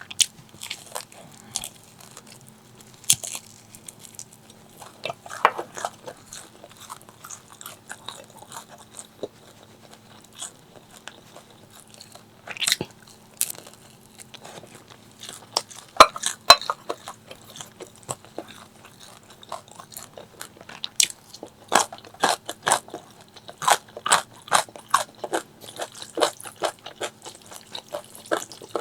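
Close-miked eating: crisp crunching bites and chewing, most likely into crispy fried chicken, in irregular clusters that come thick and fast in the second half.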